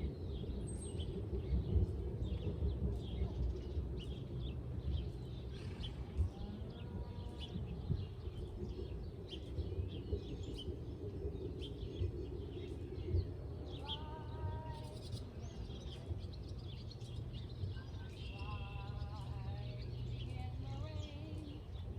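Birds chirping and calling on and off over a steady low rumble, with a few longer pitched calls in the second half.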